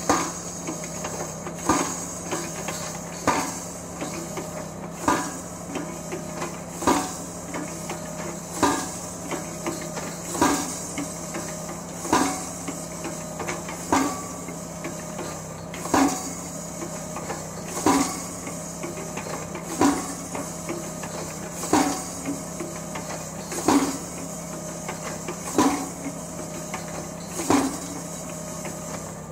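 Kencove PD80 hydraulic tractor-mounted post driver pounding a wooden fence post, its hammer striking about once every two seconds, some sixteen blows in all. The Mahindra 1526 tractor's engine runs steadily underneath.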